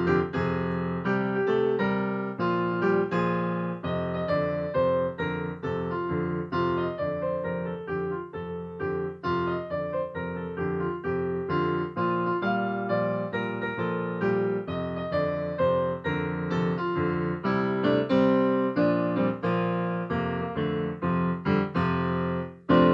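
Piano music: a slow melody of struck notes, each fading away, over sustained lower notes.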